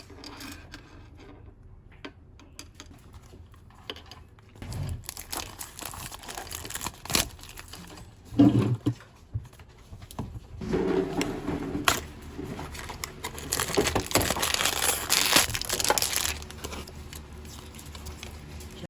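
Crinkling and rustling of something being handled, with scattered small clicks. It is quieter for the first few seconds, then louder in stretches about five seconds in and again from about ten seconds to near the end.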